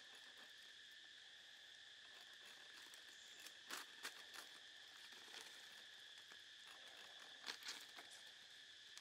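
Steady high-pitched insect drone of the forest, with two pairs of light sharp knocks from a hatchet cutting a green plant stalk, about four seconds in and again near the end.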